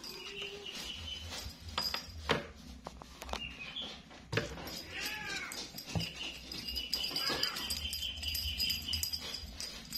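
A cat meows once, about five seconds in, among scattered light knocks and rustles from a cat pouncing at a wand toy on a bedsheet.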